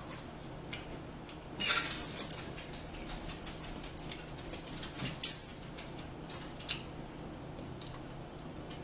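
People eating at a table: chewing and mouth sounds with scattered small clicks and taps, a short noisier stretch about two seconds in and the sharpest click about five seconds in.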